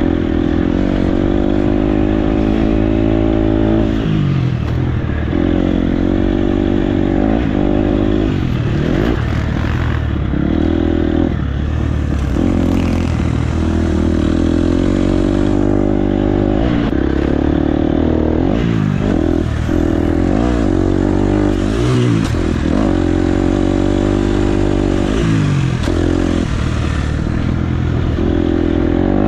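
Dirt bike engine revving up and dropping back again and again as it is ridden around a motocross track, its pitch climbing and falling every few seconds with the throttle and gear changes.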